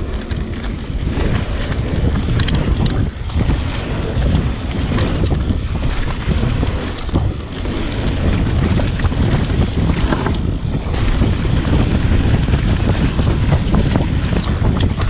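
Wind buffeting the microphone of a mountain bike's on-board camera during a fast descent, over the steady rush of knobby tyres rolling on gravel, with many scattered clicks and rattles from stones and the bike.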